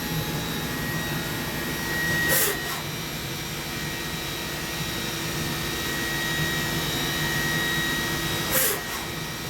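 Mori Seiki NV4000DCG vertical machining center with its spindle running steadily, giving a hum and a few steady whining tones. Two short hisses come about two seconds in and again near the end.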